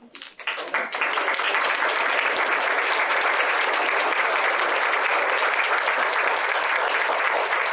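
Audience applauding: many hands clapping start just after the beginning, build within about a second, then keep up at a steady level.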